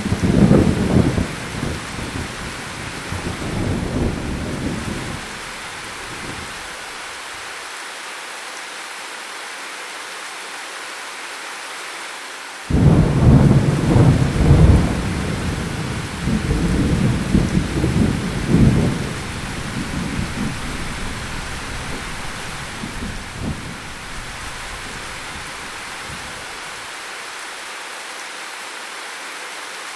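Steady rain hiss with two rolls of thunder. The first rumbles out over the opening seconds. The second breaks suddenly near the middle and rolls on in several swells for about ten seconds before fading.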